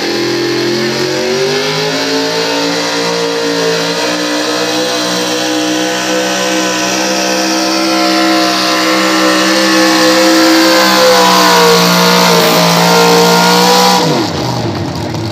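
Pulling truck's engine at high revs under load as it drags a weight-transfer sled. Its pitch climbs at the start, holds high and steady, then drops away sharply near the end as the throttle comes off.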